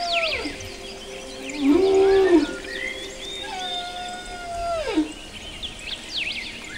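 Whale calls: two long held moans that each slide down in pitch at the end, with a shorter, louder, lower call rising and falling between them about two seconds in, over scattered high squeaks and chirps.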